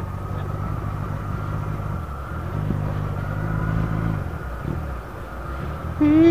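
Motorcycle engine running on the move, its low note swelling louder for a second or two midway and then easing off, over road and wind noise. A loud held tone cuts in right at the end.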